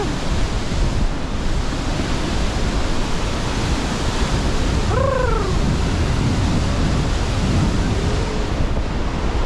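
Loud, steady roar of a waterfall's rushing water. A short, falling voice-like call rises briefly above it about five seconds in.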